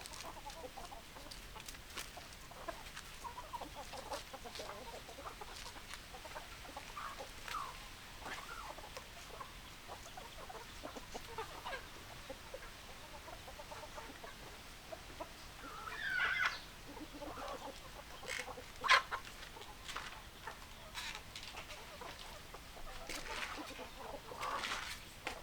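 Hens clucking in short, scattered calls, with a louder call about two-thirds of the way through and more calls near the end. A single sharp tap, the loudest sound, comes about three-quarters of the way through.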